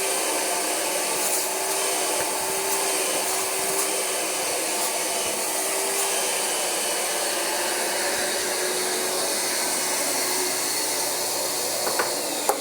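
Rug Doctor carpet cleaner's vacuum motor running steadily with a whine, drawing water and cleaner back through the upholstery hand tool as it extracts a microfiber couch. A couple of clicks come near the end.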